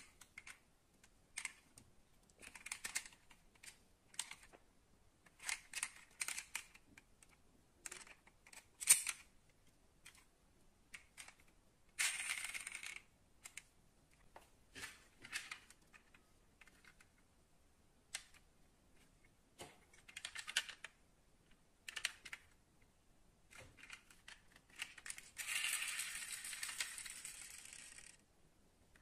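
Die-cast metal model cars handled on a wooden tabletop: scattered small clicks, clinks and knocks as they are picked up, set down and their opening doors worked. There is a short rush of noise about twelve seconds in and a longer one, about three seconds, near the end.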